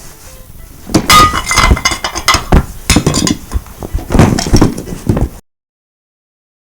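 Added foley of glass and crockery smashing: a dense run of crashes and clinks for about four seconds, then the sound cuts off abruptly to dead silence.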